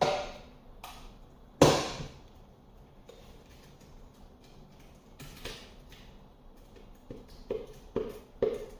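Mixer-grinder jar and utensil clattering as ground chana dal paste is emptied into a vessel: one sharp knock about two seconds in, then a run of short dull taps, about two a second, near the end.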